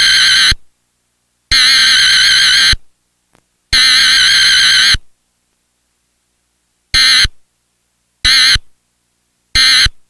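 Emergency Alert System SAME digital data bursts: three warbling header bursts of about a second each, spaced about a second apart, then three much shorter end-of-message bursts.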